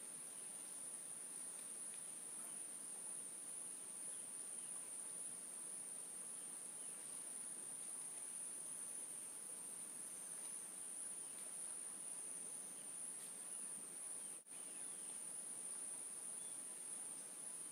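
Steady, high-pitched insect chorus of crickets or similar insects over a faint hiss, cutting out for an instant about two-thirds of the way through.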